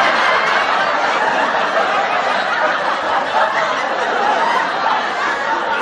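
Canned audience laughter: a crowd laughing steadily, mixed with applause.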